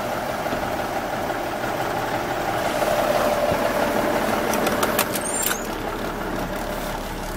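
Big-cam Cummins inline-six diesel in a 1985 Peterbilt idling steadily. A few sharp clicks and a short squeak come about five seconds in, after which the engine sound turns lower and more muffled.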